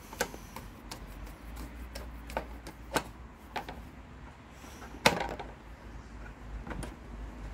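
Scattered light clicks and knocks as hands handle the loosened plastic air-filter cover of a four-stroke Rover Combat lawnmower, with one sharper knock about five seconds in.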